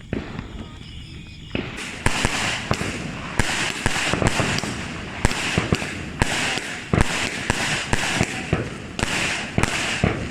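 Fireworks going off: a dense, irregular crackle of sharp pops over a hiss, starting about a second and a half in and running on.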